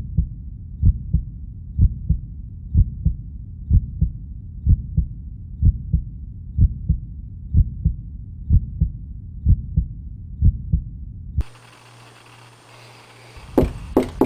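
Heartbeat sound effect: a slow, steady double thump about once a second, which cuts off about eleven seconds in. After a short stretch of faint room hum, a door is knocked on in a quick run of raps, the 'secret knock', near the end.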